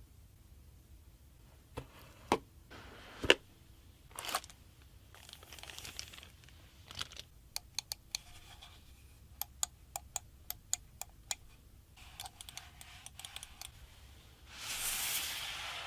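A computer mouse and its packaging being handled: rustling and tearing of packaging, a run of sharp clicks in the middle, and a burst of crinkling near the end.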